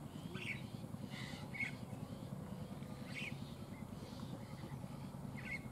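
Low, steady rumble of a diesel locomotive's engine as the train approaches slowly, with short bird calls every second or so over it.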